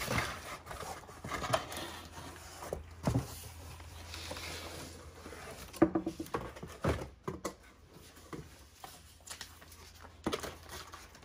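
Handling sounds of unpacking: cardboard box flaps, plastic wrapping and paper rustling and scraping, with scattered sharp knocks as the wrapped perforated security screen is lifted out of the box.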